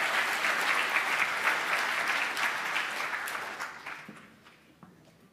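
Audience applauding, dying away about four seconds in.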